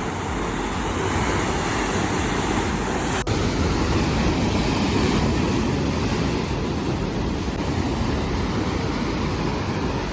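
Ocean surf washing ashore: a steady rushing noise that swells a little in the middle, with a brief click about three seconds in.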